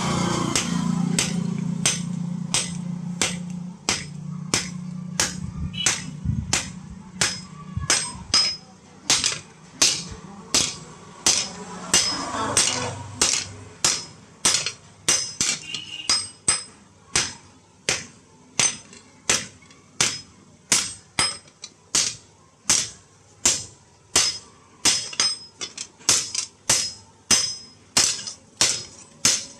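Blacksmith's hammer striking metal on an anvil in a steady rhythm, about one and a half ringing blows a second. A low steady hum runs under the blows for the first dozen seconds.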